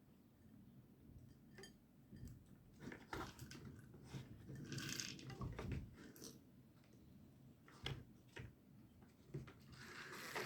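Handmade wooden hydraulic excavator model being worked: faint, scattered clicks and knocks of wooden parts moving, with a few brief scraping or rubbing noises, one about halfway and one near the end.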